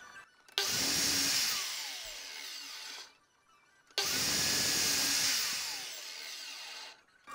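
Electric power tool working wood, run in two bursts of about two and a half seconds each. Each starts abruptly at full loudness and eases off after about a second.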